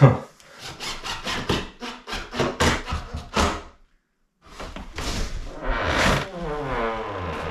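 Hand tools working wood during door-trim fitting: a quick run of short scraping strokes, then after a sudden break a longer rasping stretch.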